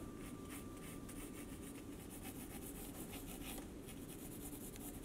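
Pencil drawing on sketchbook paper: graphite scratching in many quick, short strokes, one after another, as the lines are sketched in.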